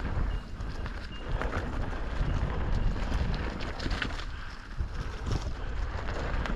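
Amflow PX Carbon electric mountain bike ridden along a dirt trail: wind buffeting the camera microphone with a constant low rumble, tyre noise, and scattered clicks and rattles from the bike over the ground.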